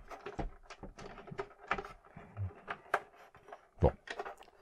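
Light plastic clicks, taps and rattles from handling a large plastic Hasbro Slave I toy spaceship, with a louder knock near the end.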